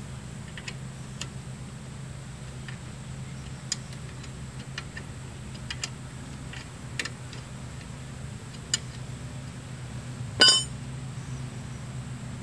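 Hand tools and metal brake parts being handled: scattered light metallic clicks and taps, then one loud ringing metal clink about ten seconds in. A steady low hum runs underneath.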